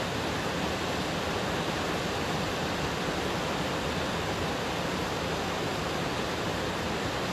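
A steady, even rushing noise that holds at one level throughout, with no breaks or separate events.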